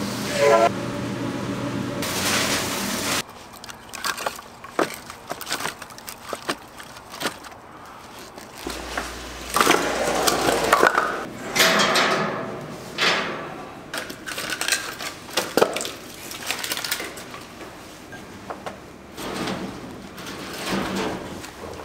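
Heavy steel smoker lid swinging shut with a metallic clang and ringing. Then split firewood logs knocking and scraping against each other as they are stacked and laid on the firebox's metal mesh grate.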